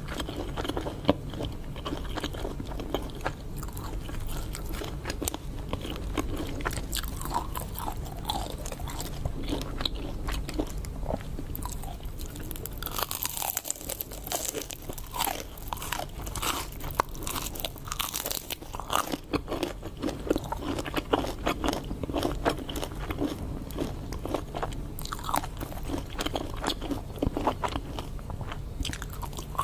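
A person biting and chewing crunchy food close to the microphone: repeated crisp crunches and wet chewing throughout, over a steady low hum.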